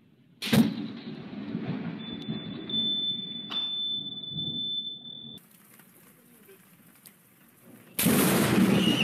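Thunder: a sharp crack about half a second in, rolling into a low rumble that lasts several seconds. A thin, steady high beep sounds over part of the rumble. Near the end a loud rush of noise starts abruptly.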